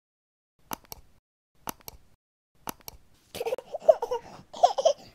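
Three quick double clicks about a second apart, a mouse-click sound effect, then a baby babbling and giggling for about two seconds.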